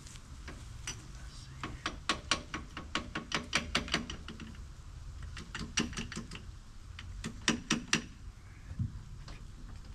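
Rapid sharp metallic clicks and clacks from a tiller's PTO drive shaft yoke being worked and pushed onto the Kubota L2502's rear PTO splines. They come in two bursts, about two to four seconds in and again about five and a half to eight seconds in.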